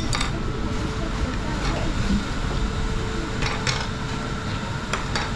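Indistinct voices over a steady low rumble of background noise.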